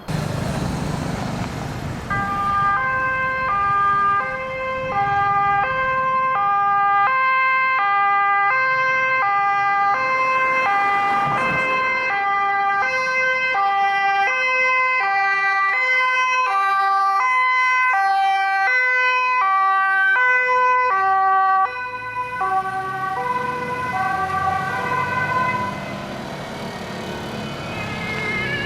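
German two-tone fire-service siren (Martinshorn) on an emergency vehicle, switching between its two notes about every half second, over the noise of the passing vehicle. About three-quarters of the way through, the pitch and level drop as the vehicle goes by.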